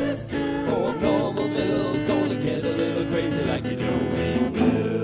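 Upbeat song with a strummed acoustic guitar and a singing voice, settling into a held chord near the end.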